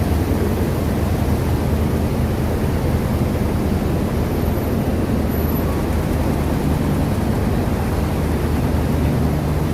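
Steady drone of running flour mill machinery: a low, even hum with a noisy rush over it.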